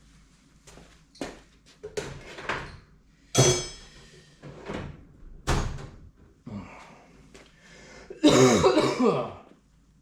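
Metal hand tools being handled: a series of separate knocks and clanks, one about three seconds in ringing out like steel, followed near the end by a longer, louder metallic scraping rattle.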